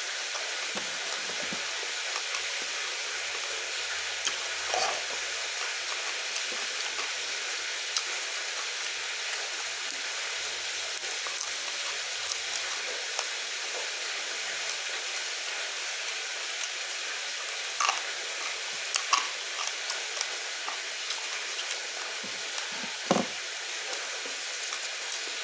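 Steady hiss of food frying in hot oil, with a few short sharp crackles later on.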